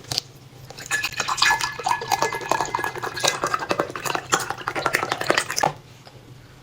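Tableware being handled: quick clicks, clinks and scrapes of utensils against dishes, some ringing briefly, lasting until near the end.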